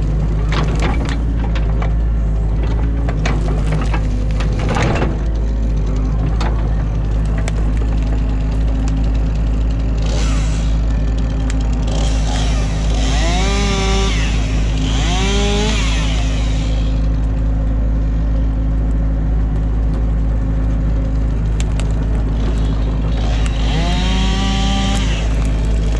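Excavator engine running with a steady low drone, with sharp cracks and snaps of sticks and branches in the first few seconds as a beaver dam is torn apart. Twice, about halfway and near the end, a whine bends up and down with a hiss over it as the machine works under load.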